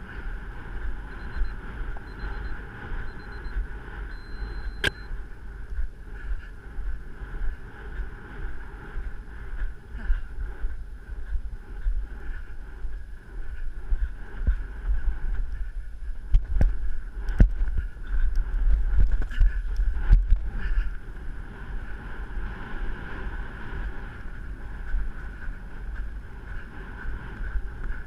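Wind buffeting a microphone carried on a moving rider, a steady low rumble, with a few sharp knocks about sixteen to twenty seconds in.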